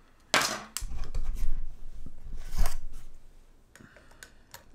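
Rustling and rubbing handling noise as hands work with a screwdriver and a small plastic propeller, two louder swishes in the first three seconds, then a few light clicks near the end.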